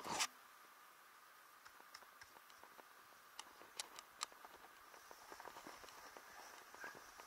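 Faint scrape and crunch of a snowboard sliding over choppy, chewed-up snow, with scattered small clicks, after a brief loud noise that cuts off right at the start.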